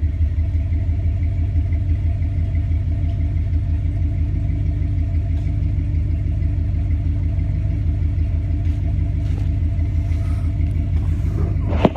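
A vehicle engine idling steadily with an even low rumble, its pitch holding level. A brief sharp sound cuts in right at the end.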